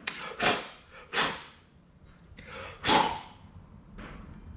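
Four short puffs of breath blown hard, about a second in, just after, and near three seconds, clearing small styrofoam bits off the new intake manifold.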